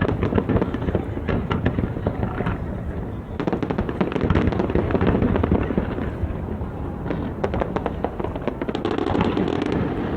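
A large fireworks display: rapid, continuous crackling and banging of many shells bursting at once over a steady low rumble, with the densest volleys about a third of the way in and again near the end.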